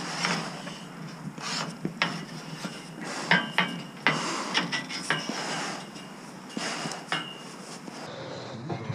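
Irregular metallic clinks and knocks with scraping and handling noise as hands grip and move along rusty steel bars while climbing; a few of the knocks ring briefly.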